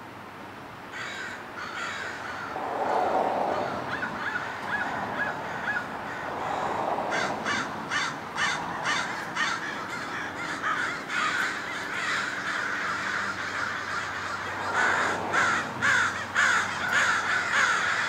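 Several crows cawing, starting about a second in, mostly in runs of quick repeated caws with calls overlapping.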